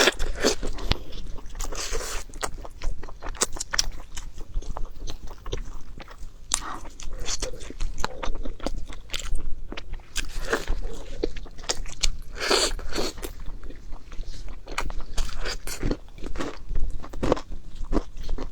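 Close-miked eating sounds: a person chewing and biting food, with irregular sharp clicks and short wet smacks throughout.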